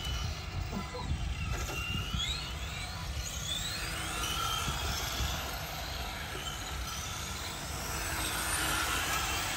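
Several 1/10-scale electric RC touring cars running on concrete, their motors whining up and down in pitch as they speed up and slow down.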